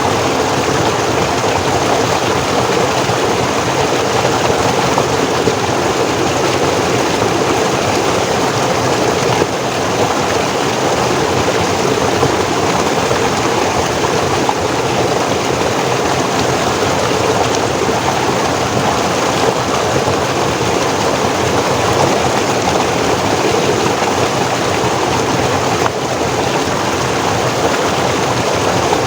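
Forest stream flowing and cascading over rocks: a steady rush of water.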